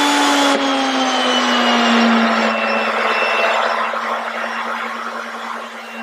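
Table-mounted router running at full speed with a quarter-inch bit, cutting a notch halfway through a half-inch-thick plastic saw adapter plate fed along the fence. A steady motor whine drops a little in pitch as the bit bites, under the rasp of the cut, which eases toward the end.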